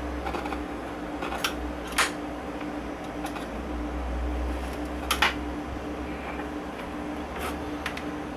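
1965 Admiral AM/FM tube radio running, giving a steady low hum and hiss from its speaker with no station pulled in, because it has no antenna. A few sharp clicks sound during it.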